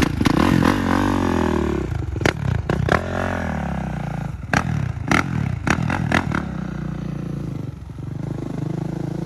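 Kawasaki KX450 dirt bike's single-cylinder four-stroke engine running under riding, its pitch dropping and rising as the throttle is rolled off and on. Several sharp clattering knocks come in the middle.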